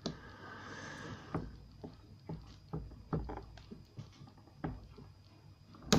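Pliers working at a stubborn part inside a disassembled Ingersoll rim lock cylinder: a short scraping at first, then irregular small clicks and knocks, with a sharper click at the very end.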